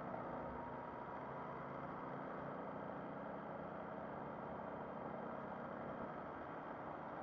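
MV Agusta Brutale Rosso 800's inline three-cylinder engine running at a steady cruising speed, its note faint under steady wind and road noise.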